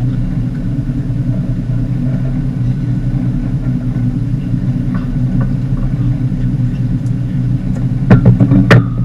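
Fishing boat's engine running steadily with a low drone, and a quick run of loud knocks about eight seconds in.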